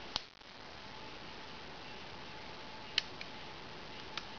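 Three sharp clicks from handling the mechanism of a combination brass-knuckles knife and pistol: one right at the start, one about three seconds in, followed at once by a faint second click, and a fainter one near the end. A steady hiss runs underneath.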